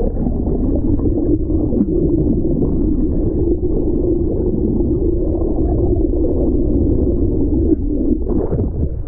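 Muffled underwater sound from a camera held below the surface: rushing water and bubbles over a steady low hum from the boat's engine carried through the water.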